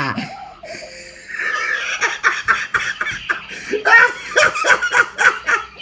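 A person laughing: a run of short, quick bursts of laughter, about four a second, starting about two seconds in.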